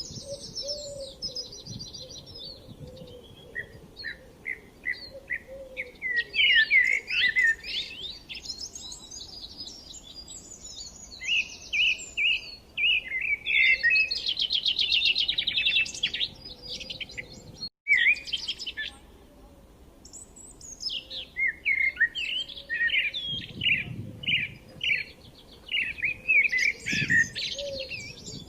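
Several songbirds chirping and singing in overlapping phrases of quick chirps and trills, with a faint lower call running under them. The sound drops out for an instant about 18 seconds in.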